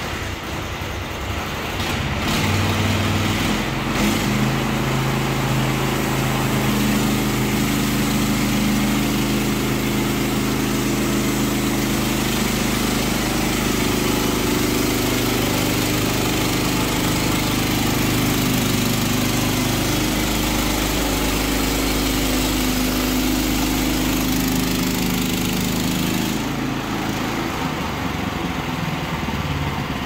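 Norwood LumberMate LM30 portable band sawmill running under load, its petrol engine driving the band blade through a log with a steady engine note under a loud, hissing cutting noise. About 26 seconds in the higher sawing noise thins while the engine keeps running.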